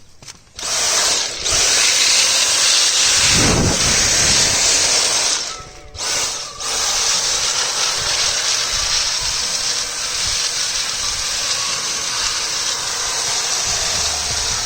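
Dyson V7 Trigger Pro cordless handheld vacuum running with a loud, high hiss as it sucks up dirt. It cuts out briefly twice about halfway through, as the trigger is let go, and comes straight back up to speed. There is a low bump about four seconds in.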